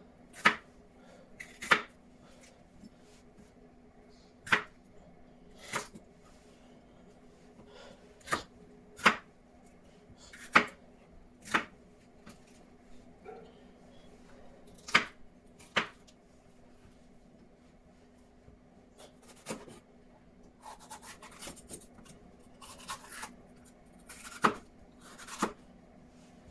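Kitchen knife cutting bell peppers on a wooden chopping board: single sharp knocks of the blade on the board every second or two, then quicker runs of small cuts near the end.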